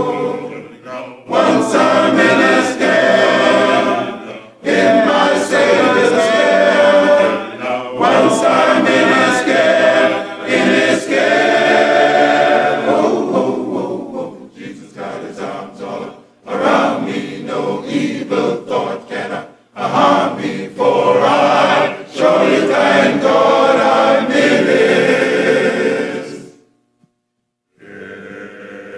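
Men's choir singing a gospel song a cappella in phrases with short breaks. The singing stops for about a second near the end, then starts again.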